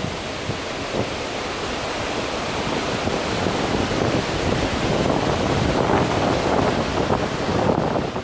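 Steady rushing of wind over the microphone on a moving ship's open deck, mixed with the wash of the sea, swelling louder about halfway through.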